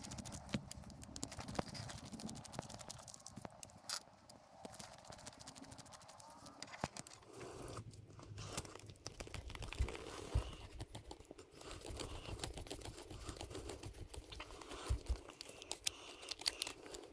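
Faint clicks, creaks and scrapes of hand work on a small plastic RC crawler chassis: a precision screwdriver turning screws into a 3D-printed rock slider. A few sharper clicks come near the middle and near the end.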